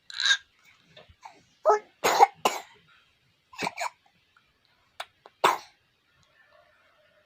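A four-month-old baby coughing: a run of short, sudden coughs in ones and twos, with pauses between the groups.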